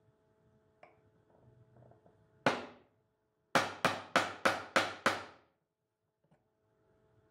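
Hammer striking a bench chisel to chop out the waste of a dovetail socket. One blow lands, then after about a second six quick blows follow, about three a second, each sharp with a short ringing decay.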